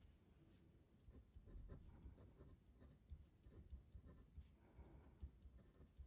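Felt-tip pen writing on paper: faint short scratching strokes as a few words are lettered.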